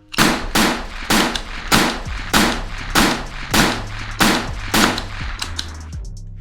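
A series of about nine sharp gunshot-like bangs, roughly one every 0.6 s, each with a short fading tail, dying away near the end.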